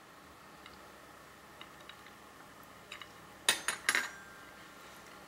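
A few faint ticks, then two sharp clinks of tableware about three and a half seconds in, the second one ringing briefly.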